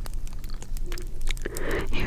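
Crackling fire: scattered sharp pops and snaps over a low steady rumble, with a soft whisper starting near the end.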